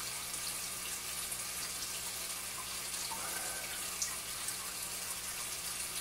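Aquarium equipment running: a steady rush of moving water with a low, even hum underneath. There is a faint click about four seconds in.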